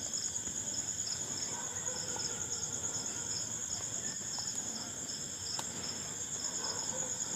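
Crickets chirping: one insect holds a steady high trill while another chirps in a quick even rhythm, about three pulses a second. A single faint click comes in about five and a half seconds in.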